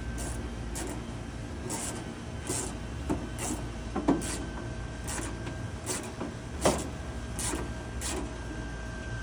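Hand work on an air conditioner's sheet-metal cabinet: a run of irregular clicks, rattles and scrapes, with two sharper metal knocks about four and seven seconds in, over a steady low background hum.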